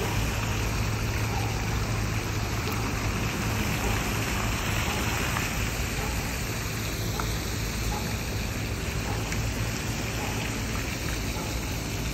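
Steady splashing and rushing of water from a large city fountain, with a constant low hum underneath.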